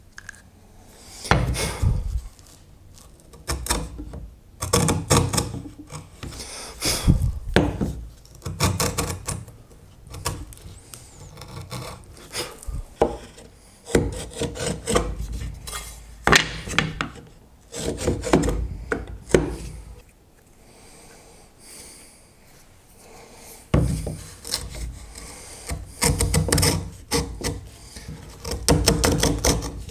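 Hand tool worked on hardwood in rough rasping strokes, a few strokes at a time with short pauses between, quieter for a few seconds about two-thirds of the way through.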